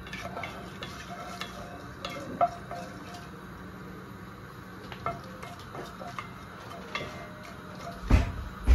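Wooden spatula stirring fenugreek seeds in hot coconut oil in a granite-coated pot: a faint steady sizzle with scattered light scrapes and taps. Two heavier thumps come near the end.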